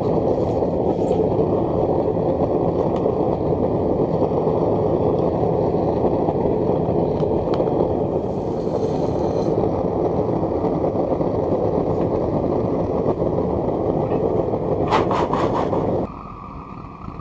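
Propane-fired foundry furnace burner running with a steady rushing noise, dropping sharply about a second before the end. A few quick metal clicks come just before the drop.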